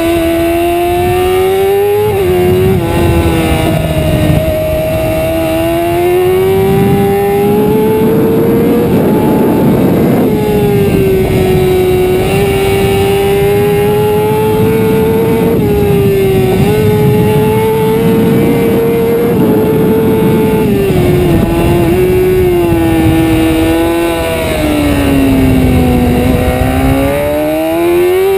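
Honda sport bike's engine at high revs, heard from onboard, with a rushing noise underneath. The pitch climbs and then drops quickly several times as it changes gear. About 25 s in the revs fall to their lowest, then climb again.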